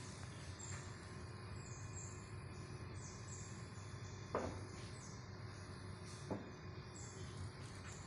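Outdoor woodland chorus of small birds and insects: short, high chirps repeating every half second or so over a low steady rumble. A sharp knock sounds about four seconds in and a softer one about six seconds in.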